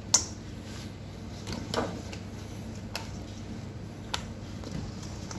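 Raw crinkle-cut potato slices being dropped into a stainless steel bowl: a few separate sharp taps, the loudest just after the start, over a steady low hum.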